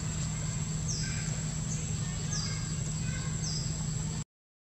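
A bird repeating a short, high, falling chirp about four times over a steady low hum and a constant thin high whine. The sound cuts out completely for a moment near the end.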